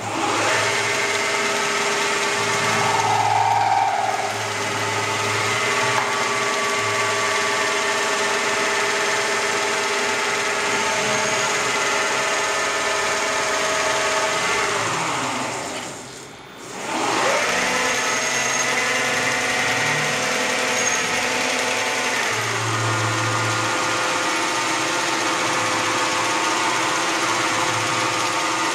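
CNC lathe machining mild-steel pipe under coolant: the spindle drive runs with a steady multi-tone whine over cutting and coolant noise. About halfway the spindle winds down almost to a stop, then spins back up to speed.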